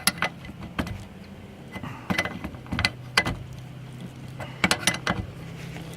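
Wrench clicking on the wiper-arm nut as it is loosened: sharp metal clicks at irregular intervals, a few bunched together about two seconds in and again near five seconds, over a low steady hum.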